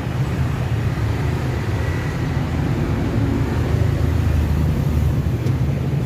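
Twin-tub washing machine's electric motor running, a steady low hum and rumble.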